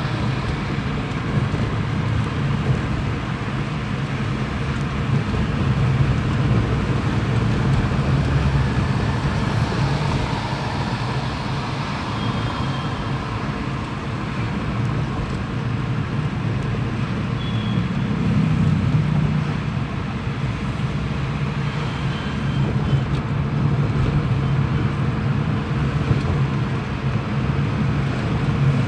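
Car engine and road noise heard inside the cabin of a moving car in traffic: a steady low rumble.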